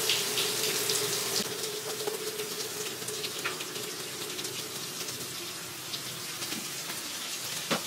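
Washing machine filling with water: a steady rush of running water with a faint hum under it.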